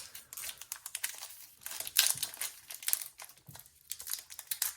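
Foil wrapper of a Pokémon trading-card booster pack crinkling and crackling in the hands as it is opened, in irregular bursts with the loudest crackle about two seconds in.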